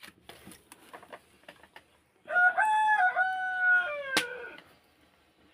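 A rooster crowing once, a crow of a little over two seconds that drops in pitch at the end, with a sharp click near its end. Light clicks and knocks come before it.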